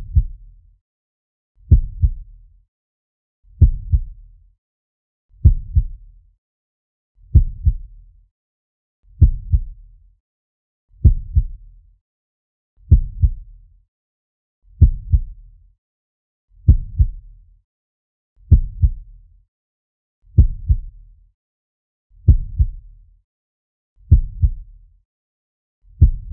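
Slow heartbeat sound effect: a low, deep double thud (lub-dub) repeating steadily about once every two seconds.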